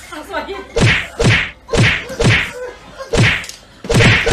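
A run of loud whacks, about two a second, as a cat and a dog trade paw swats at each other.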